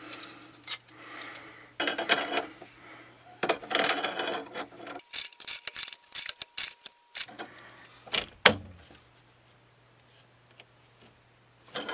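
Pliers tightening a brass threaded-to-PEX adapter onto the Teflon-taped half-inch threads of a spigot pipe, metal on metal. It makes bursts of scraping and creaking with a quick run of clicks, and one sharp click at about eight and a half seconds.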